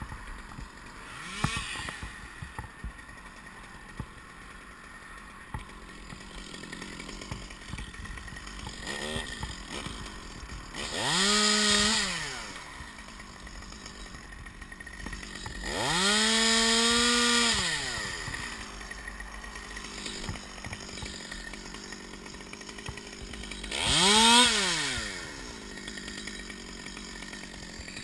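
Chainsaw revved up three times, each rev a second or two long, its pitch rising, holding and then falling away; the middle rev is the longest.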